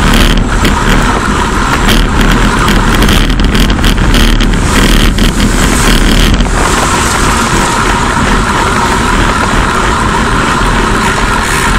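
Steady wind rush and road noise on a bicycle-mounted camera's microphone at about 50 km/h, with motor traffic running alongside.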